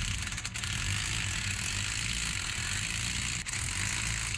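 Electric impact wrench with a 30 mm socket hammering steadily on the axle nut of a 2005 Lincoln Aviator's front wheel hub, working the nut loose.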